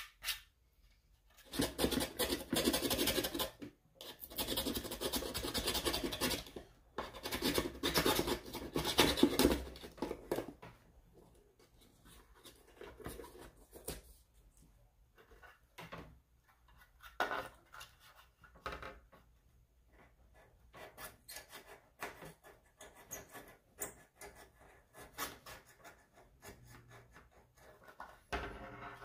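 Scratching and rubbing on a subwoofer cone being worked by hand, in three long bouts over the first ten seconds, then scattered short scratches and clicks.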